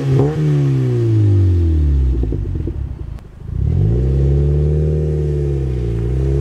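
Mazda MX-5 NC four-cylinder through a Cobra Sport Race back box, revving. The revs fall away after a blip, dip with some crackle about two to three seconds in, then rise again as the car pulls away.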